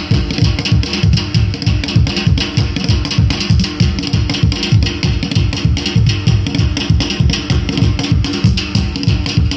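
Upbeat African dance music played loud: a fast, steady drum beat with guitar.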